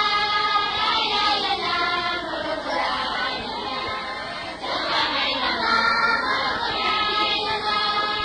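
Voices singing an Islamic devotional song in chorus, holding long notes.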